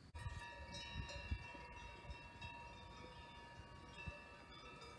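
Many cowbells ringing together on a herd of cows: a dense jangle of overlapping, sustained bell tones that sets in suddenly at the start.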